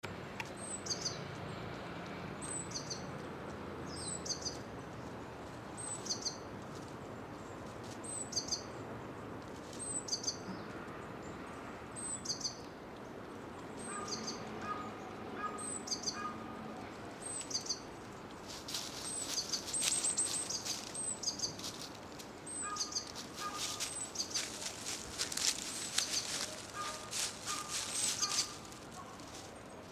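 Japanese tit singing, repeating its short high phrase about every two seconds. In the second half, dry fallen leaves rustle and crunch loudly underfoot as the recordist's footing wobbles.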